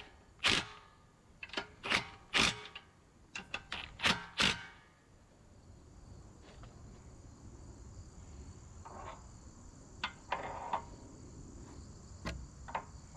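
A quick run of about ten sharp clicks and knocks in the first few seconds, from hand work on the sawmill's engine and clutch parts, then a few softer knocks. Insects chirr steadily and high throughout.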